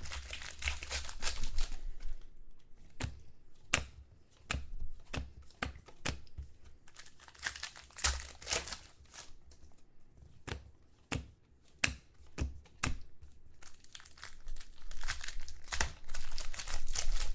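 Trading-card pack wrappers being torn open and crinkled, with scattered sharp crackles as the packs and cards are handled, busiest near the start and near the end.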